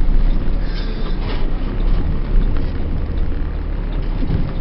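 Truck engine running at low speed, a steady low drone heard from inside the cab.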